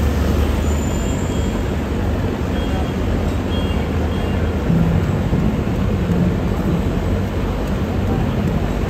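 Steady low rumble of engines and machinery running.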